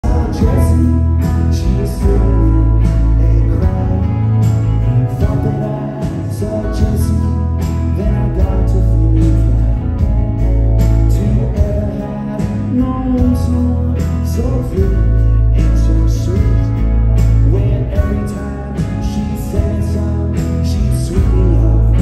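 Live indie rock band playing a song, with a steady drum beat and heavy bass under guitars and keyboards, heard from among the audience.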